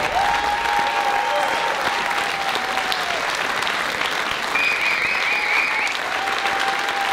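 Theatre audience applauding steadily, with held cheers and, about four and a half seconds in, a warbling whistle.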